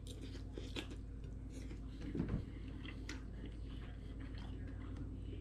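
A person chewing a mouthful of soft baked fish quietly, with faint small mouth clicks. A brief, slightly louder low sound comes about two seconds in.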